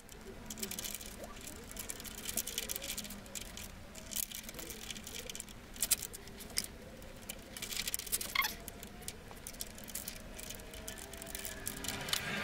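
Scattered small clicks, taps and rattles of parts handled and fitted by hand: a motorcycle's handlebar switch housing and lever being put back onto the handlebar.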